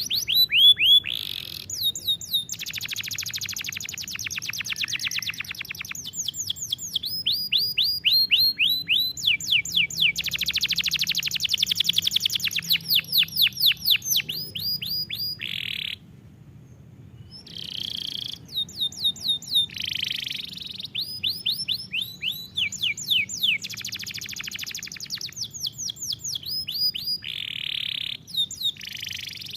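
Domestic canary singing: a long song of fast trills and rolls of rapidly repeated notes, pausing briefly about halfway through before singing on.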